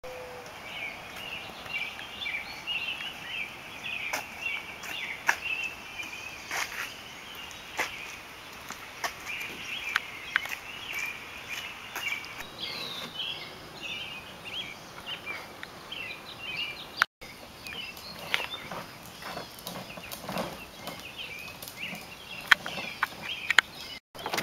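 Outdoor ambience with many small birds chirping, and scattered taps and footsteps on pavement. The sound cuts out briefly twice.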